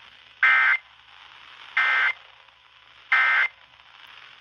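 Emergency Alert System end-of-message data tones received on an FM radio. They come as three short two-tone digital bursts, about a second and a half apart, with faint radio hiss between them, and they mark the end of the alert message.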